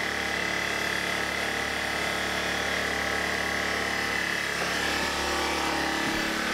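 Predator 1400 inverter generator's small four-stroke engine running steadily with no load and economy mode switched off, its tone shifting slightly partway through. A short knock near the end as the generator is handled.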